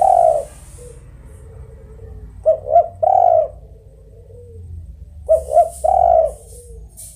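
Spotted dove cooing its song: a repeated three-note phrase of two short coos followed by one longer coo, sung twice in full after the end of a previous phrase, about every three seconds.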